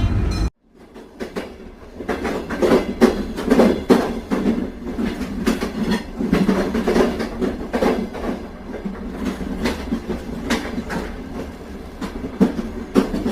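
A rolling clatter with many irregular knocks over a steady rumble, fading in over the first two seconds after a brief dropout.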